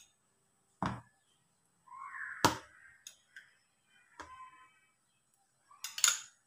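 Steel spoon clinking and tapping against a ceramic bowl and a plastic tub while a coffee-milk mixture is spooned over bread slices. There are four sharp clinks a second or two apart, the loudest about two and a half seconds in, some with a short ring after them.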